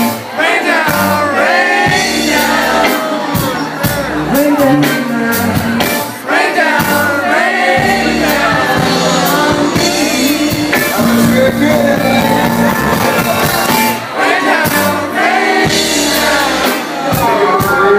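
Live soul band playing a song, with a lead singer's voice over steady bass and drums.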